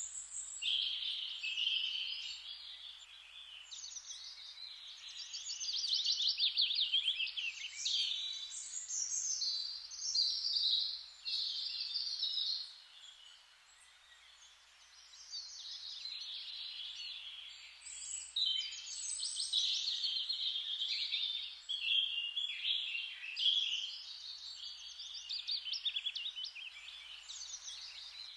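Songbirds singing in a near-continuous run of high, rapid trills and chirps, with a short lull about halfway through.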